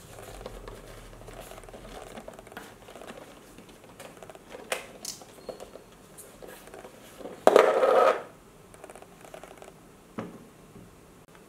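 A coin rolling and sliding along the spiral track of a cardboard coin-bank maze box as it is tilted by hand, with cardboard rubbing and small clicks. About two-thirds through there is a loud rattling clatter lasting about half a second, and a single click near the end.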